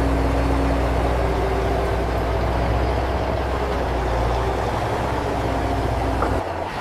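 Steady low engine drone, like a heavy diesel truck idling, from the RC excavator and truck models, with a few fainter steady whining tones above it. It drops away shortly before the end.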